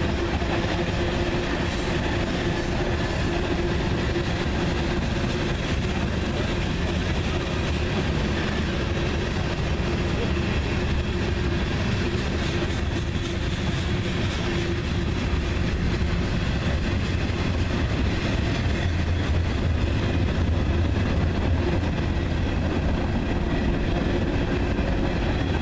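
Freight cars of a long freight train rolling past at a steady speed: continuous rumble and wheel-on-rail noise, with a steady tone running under it.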